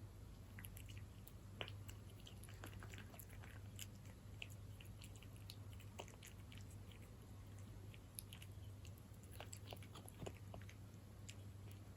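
A cat chewing wet cat food in jelly (Felix beef in jelly): faint, irregular wet clicks and smacks of its mouth and teeth, over a steady low hum.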